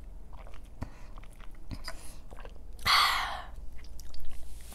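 Close-miked mouth sounds of eating and drinking: scattered small wet clicks of chewing and sipping through a straw, and one breathy exhale, an "ahh", about three seconds in.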